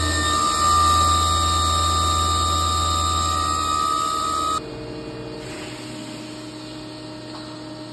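1997 Fadal 15-XT CNC vertical machining centre's spindle running at speed with a steady whine over a low hum, then shut off about halfway through, the sound dropping suddenly to a quieter hum that fades as the spindle winds down.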